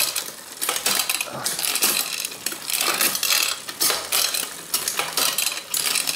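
Road bike drivetrain cranked by hand in a repair stand: the chain clatters over the sprockets and chainrings, with irregular clicks and clunks, about one or two a second, as it shifts onto the largest rear cog and between front rings. Cross-chained on the big ring and biggest cog, the chain rubs lightly on the front derailleur cage.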